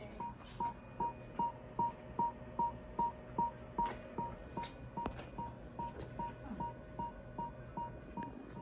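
Fetal heart monitor beeping in time with the baby's heartbeat, an even rhythm of about two and a half beats a second, around 150 a minute, the normal rate for an unborn baby. The beats are strongest in the middle stretch and soften toward the end.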